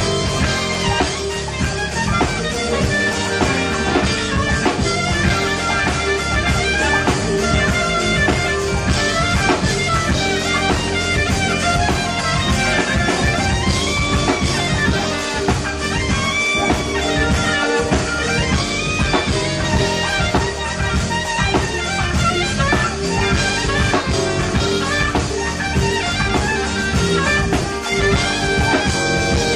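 Live instrumental jazz: a saxophone plays a wavering melodic lead over a band with drum kit.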